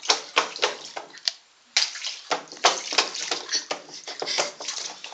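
Water splashing in a small pool as a child moves about in it: quick, irregular splashes, with a short lull about a second and a half in.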